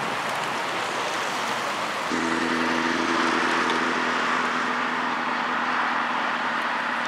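Steady outdoor noise, joined about two seconds in by a steady low mechanical hum.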